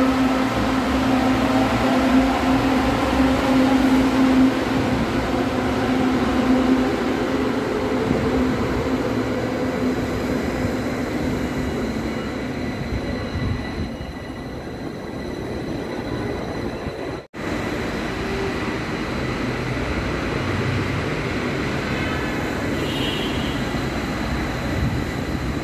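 Manila LRT Line 2 electric metro train pulling out of the station, its traction motors whining in rising tones as it speeds up and fades away. After a brief cutout past the middle, a steady low rumble carries on.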